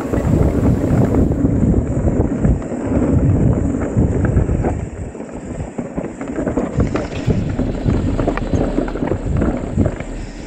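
Wind buffeting the microphone and tyres rumbling over a dirt trail while riding a Cube electric mountain bike, with frequent knocks and rattles from the bike over bumps.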